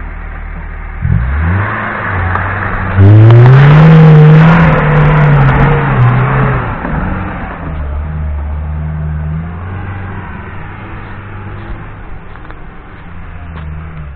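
Lada Niva's engine pulling through deep mud: the revs climb about a second in and rise hard about three seconds in, with the noise of the wheels throwing mud. After about six and a half seconds the revs drop back and the engine note fades as it drives away.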